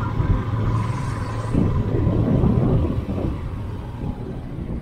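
Car engine and tyre noise heard from inside the moving car, a steady low hum that swells in the middle and grows quieter from about three seconds in.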